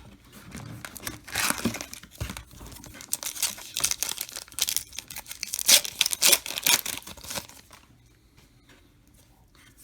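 Foil wrapper of a trading card pack crinkling and tearing open, in a run of sharp irregular rustles that die down about two seconds before the end.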